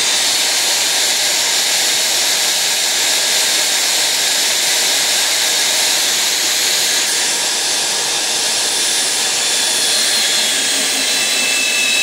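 Portable line-boring bar cutting an oversize bore through a ductile iron boss, a loud, steady hissing machining noise with the drive running. Near the end a thin high whine comes in; this cut sits farther from the bar's support bearing, where the bar is more prone to chatter.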